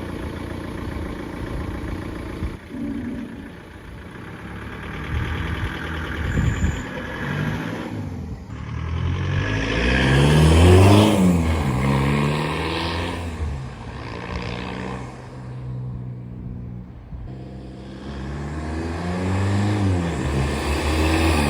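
Volkswagen TDI turbo-diesel engine running, revved up and back down twice, around the middle and near the end. It is running with a head gasket that leaks into the cooling system and keeps it pressurized.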